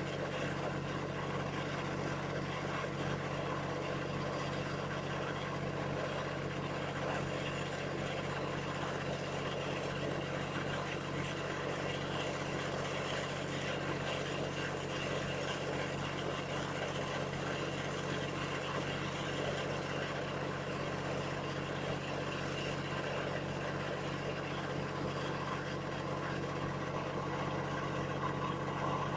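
An engine idling steadily, a constant even hum with no change in speed.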